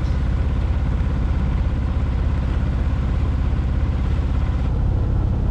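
A sailboat's engine running steadily, with a fast, even chugging.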